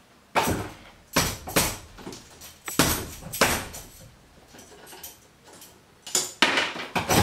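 Steel parts of a tripod tattoo arm rest clanking and rattling as the post is fitted into the stand: a series of sharp metal knocks in the first half, a quiet pause, then another quick cluster near the end.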